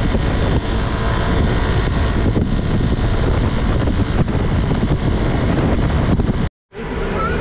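Loud, steady wind buffeting on the microphone while travelling in a moving vehicle, heaviest in the low end. It cuts out for a moment near the end.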